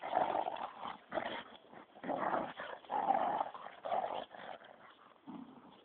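Dogs growling in short bursts, about one a second, while play-wrestling.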